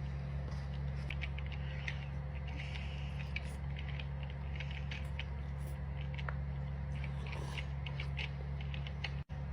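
Close-up eating sounds: chewing spaghetti, with many small wet mouth clicks scattered irregularly over a steady low hum. The audio cuts out for an instant near the end.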